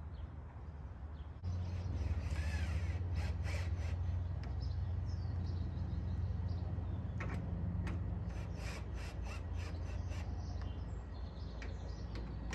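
Birds calling, crow-like caws among them, over a steady low rumble that starts about a second and a half in.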